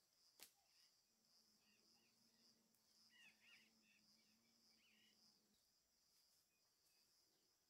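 Near silence: a faint, steady high hum of insects, with one soft click about half a second in.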